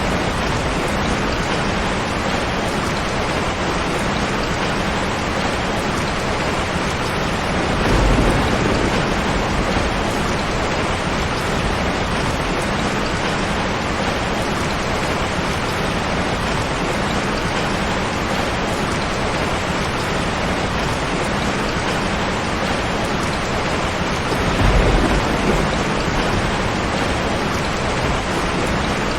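Heavy rain drumming steadily on a tin roof, with two low rolls of thunder, one about eight seconds in and another a few seconds before the end.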